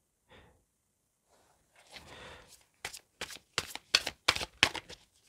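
Tarot cards being shuffled and drawn by hand: a soft rustle, then a quick run of about a dozen sharp card snaps and flicks.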